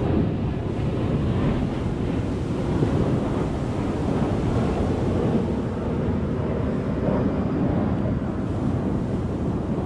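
Wind rumbling on the microphone over the steady wash of surf on a sandy beach.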